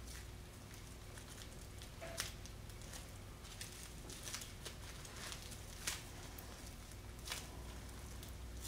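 Faint handling noises: a few scattered light clicks and rustles as gloved hands fit and press together the halves of a foam layup mold, over a low steady hum.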